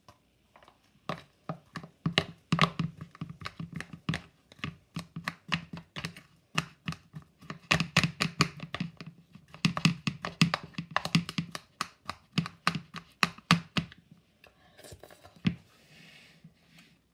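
Kitchen knife chopping banana pieces on a cutting board: a fast, uneven run of sharp knocks, several a second, with a short break partway through, stopping about fourteen seconds in.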